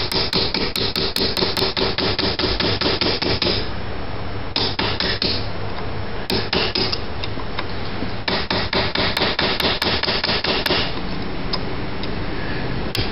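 Small hammer tapping a steel punch driven into a bolt hole in an aluminum alternator housing, in quick runs of light metallic taps with short pauses between. It is chipping out the pieces of a broken, hardened bolt seized in the aluminum by corrosion.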